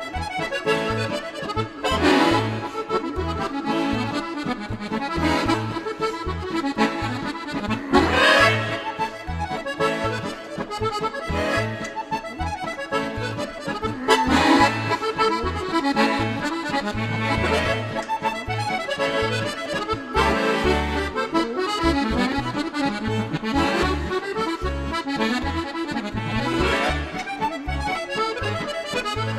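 Solo chromatic button accordion playing a kujawiak, a Polish folk dance tune in triple time: a right-hand melody over a steady pulse of left-hand bass notes and chords.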